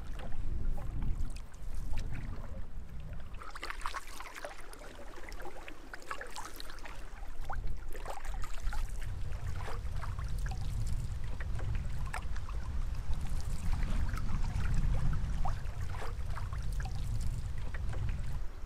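Water splashing and lapping against a moving boat's hull in small irregular crackles, over a steady low rumble of wind and water on the microphone.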